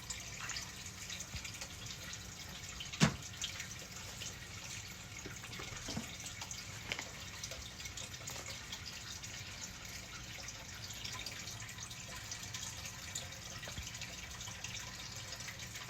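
Faint handling noise from crafting with a hot glue gun and feathers: a low steady background with a few small clicks and taps, the sharpest about three seconds in.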